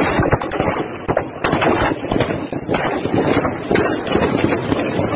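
Gunfire: many irregular sharp cracks in quick succession, with wind noise on the phone's microphone.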